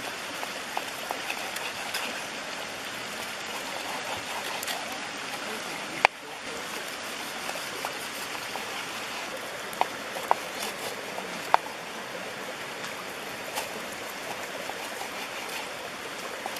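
Knife and metal tongs clicking and knocking against a wooden cutting board and metal tray while a steak is sliced, with the loudest knock about six seconds in. A steady rushing noise like a running stream underlies it throughout.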